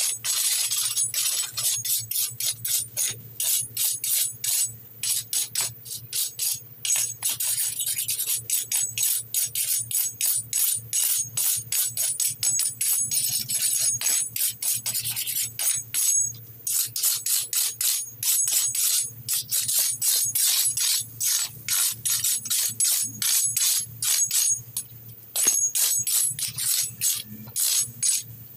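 Hand weeding blade scraping weeds out of the joints between brick patio pavers: quick, repeated rasping strokes, several a second, with short pauses between runs.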